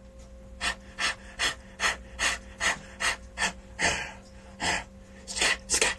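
A man huffing short, breathy puffs into a studio microphone, roughly two to three a second, a run of rhythmic panting-like vocal noises.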